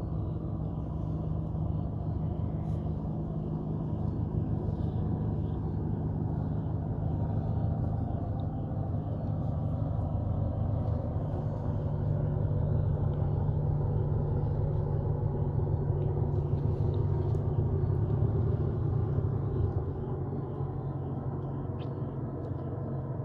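Steady low mechanical hum, a little louder in the middle, with a few faint clicks.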